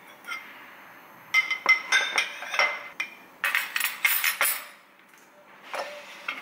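Ceramic rice bowls and metal cutlery clinking as they are set down on a wooden tray, in two quick clusters of clinks with a short ring.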